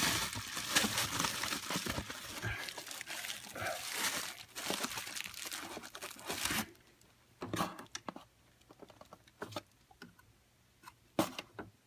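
Packing material crinkling and rustling as it is pulled at and handled for the first several seconds, then a few scattered light clicks and knocks.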